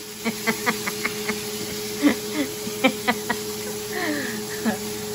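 Bacon sizzling in a frying pan, with a metal spatula knocking and scraping against the pan several times, over a steady low hum.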